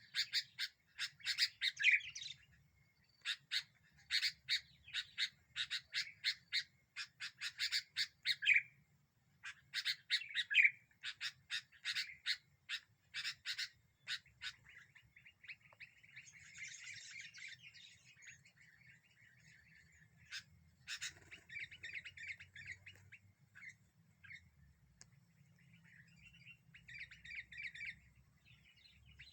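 Sooty-headed bulbul (kutilang) calling in bouts of rapid chattering notes, each bout about two seconds long, repeated over and over; about halfway through the calls turn fainter and buzzier.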